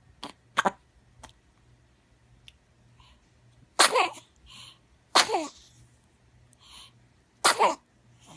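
Three sneezes about a second and a half apart, each a high-pitched voiced burst falling in pitch and preceded by a quick in-breath. Two short sharp clicks come in the first second.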